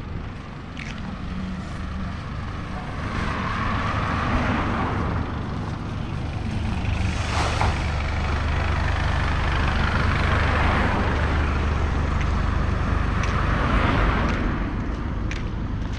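Street traffic: a motor vehicle's engine rumbles close by while other vehicles pass in several swells, with a short hiss about seven and a half seconds in.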